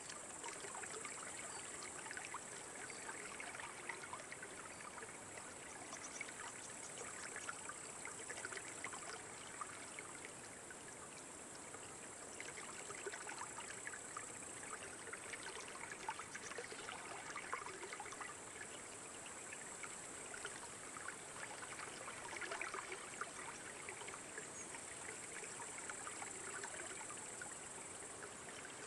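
Steady running water: a continuous trickle dense with tiny splashing ticks, over a constant high hiss.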